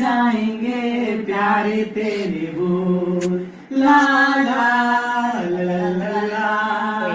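Unaccompanied singing: a man leads a song in long held notes and a woman sings along with him.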